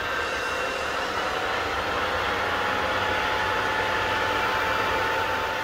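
Air-blown charcoal forge fire: a steady rushing roar with a faint, slowly shifting whine from the blower.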